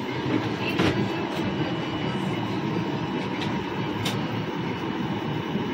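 Steady rushing noise inside an airliner cabin at the gate, the kind made by the cabin air-conditioning, with a couple of faint clicks.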